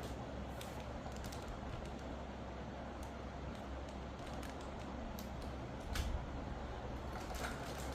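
Keys of a Keychron K8 Pro mechanical keyboard clicking as they are pressed, at an irregular pace, with a louder knock about six seconds in.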